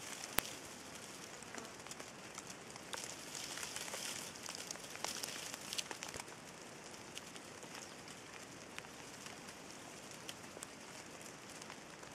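Cape pangolin (Temminck's ground pangolin) foraging on the ground: scattered small crackles and scratches in leaf litter and soil over a faint high hiss, with one sharp click about half a second in.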